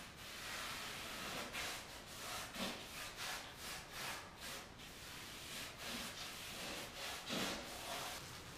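A small hand tool rubbing against drywall up in a wall-to-ceiling corner, in irregular strokes about two or three a second, with a louder stroke near the end.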